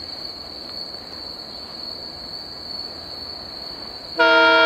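Insects trilling on one steady high pitch over low background noise. Near the end, an Indian Railways WDM-3A (ALCO) diesel locomotive's multi-tone air horn sounds loudly as the train approaches.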